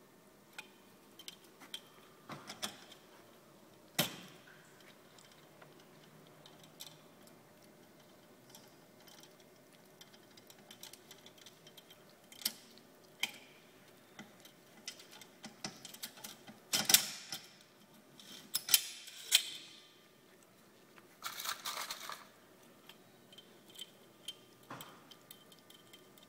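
Scattered clicks, taps and clattering of metal tools being handled at a workbench while a drill bit is fitted into the chuck of a drill mounted in a drill stand. There is a sharp knock about four seconds in and a louder run of clatter and rattling past the middle.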